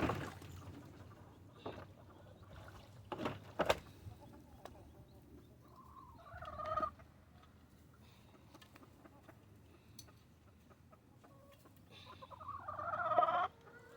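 Domestic hens clucking, with a short call about six seconds in and a louder, drawn-out call near the end; a few sharp knocks in the first few seconds.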